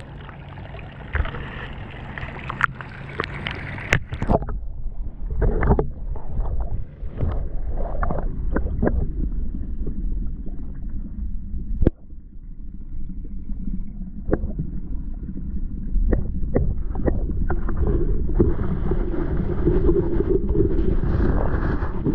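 Water splashing and sloshing around an action camera at the surface of a pond. After about four seconds the camera goes under and the sound turns muffled and low, with scattered clicks and knocks against the housing and a sharp click about halfway through.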